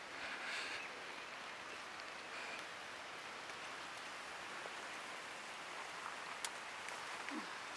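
Faint steady outdoor hiss with light rustling and a few sharp little snaps, as thuthuvalai (climbing brinjal) leaves are plucked by hand from the plant.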